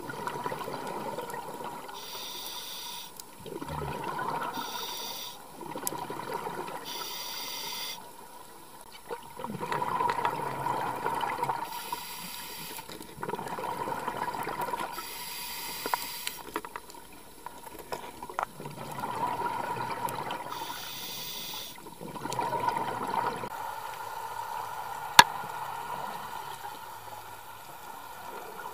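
Scuba breathing through a regulator underwater: a short hiss on each inhale, then a rush of exhaled bubbles, repeating about every four to five seconds, six breaths in all. The breathing pauses for the last few seconds, with one sharp click about three seconds before the end.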